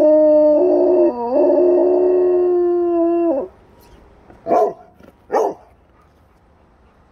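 A dog howling with its muzzle raised: one long held note that dips briefly about a second in, then slides down and stops about three and a half seconds in. This is followed by two short barks about a second apart.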